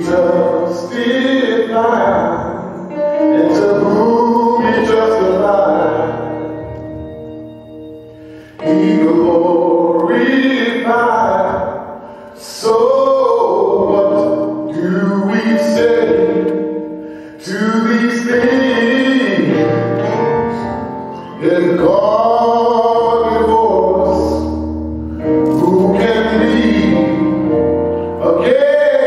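A man singing a gospel song into a handheld microphone, over a keyboard accompaniment. The song comes in phrases a few seconds long, each starting loud on long held notes and fading away.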